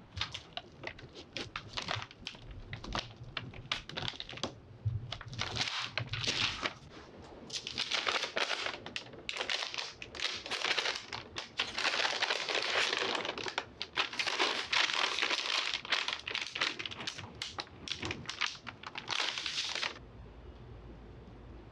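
Parchment paper crinkling and rustling as dough is rolled out under it with a rolling pin and the top sheet is peeled away. The crinkling is loudest in the second half and stops suddenly near the end.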